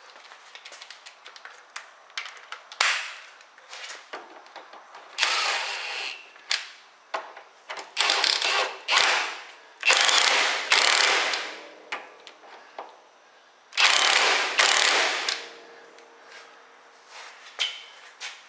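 Ratchet wrench clicking in short bursts as nuts are run down and tightened on the car's front steering parts, with knocks of tools and metal between the bursts.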